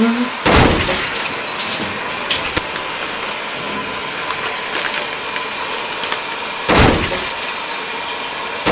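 Shower water running steadily as a hiss, broken by two loud thumps, one about half a second in and another near the end, with a few faint clicks between.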